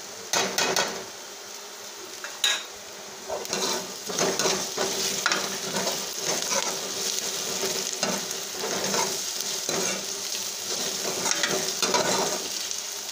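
Chopped onions and garlic sizzling in oil in a steel kadhai, stirred with a metal ladle that scrapes the pan in short strokes. There is one sharp clink about two and a half seconds in.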